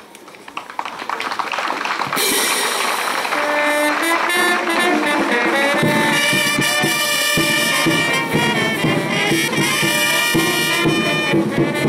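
Brass band music, starting abruptly about two seconds in and playing on steadily.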